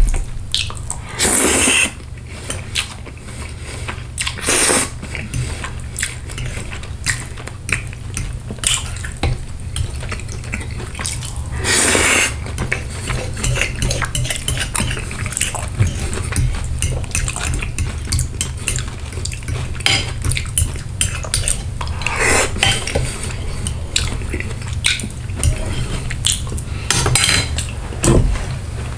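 Metal fork scraping and clicking against a plate while gathering the last of the spaghetti and sauce. There are many quick clinks, with a few longer, louder scrapes.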